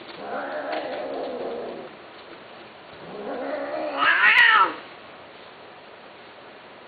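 A cat meowing twice: a first drawn-out call, then after a pause a louder, longer cry that rises in pitch and swells before falling away.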